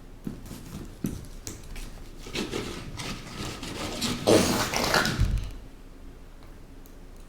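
Eating noises close to the microphone: scattered clicks and short mouth and food sounds, louder for about a second around four seconds in and ending in a low thump.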